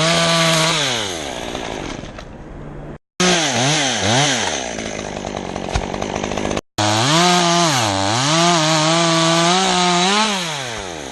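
Two-stroke Stihl chainsaw revving up and down over and over, its pitch climbing to full throttle, held high for stretches, then dropping back. The sound cuts out abruptly twice, about 3 and 6.7 seconds in.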